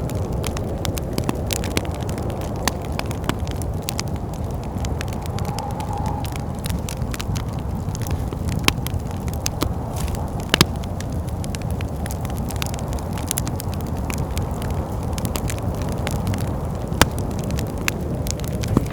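Wood fire crackling with frequent sharp pops, two of them louder, over a steady low rumble of wind.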